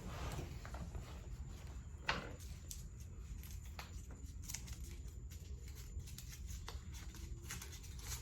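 A folded paper slip being opened by hand: faint crinkling and scattered small clicks, one a little louder about two seconds in, over a low steady hum.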